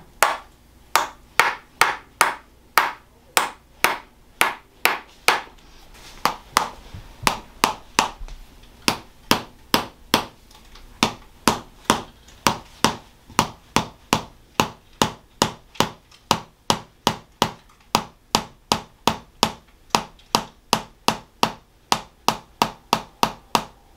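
Tok sen massage: a mallet striking a wedge held against the back, giving a steady run of sharp wooden taps, about two to three a second.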